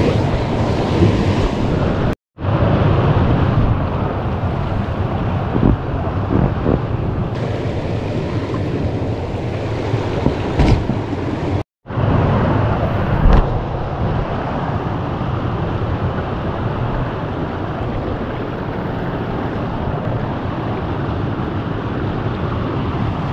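Steady rush of a fast-flowing river running over rocks, with a couple of brief knocks. The sound cuts out completely for a split second twice, once near the start and once about halfway.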